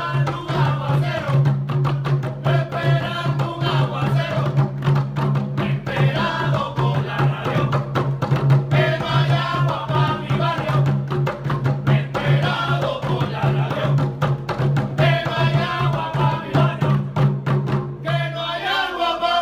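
Percussion group beating empty plastic water-cooler jugs in a quick, busy rhythm, with voices chanting along. A steady low hum runs underneath and stops shortly before the end.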